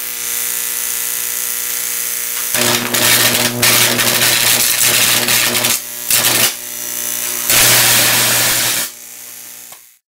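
High-voltage arc from a modified transformer (about 30,000 volts) drawn off the top of an electromagnet. A steady electrical hum is heard first; about two and a half seconds in, the arc strikes with a loud, harsh buzz over the hum. It drops out briefly twice, buzzes again, then falls back to the quieter hum and cuts off near the end.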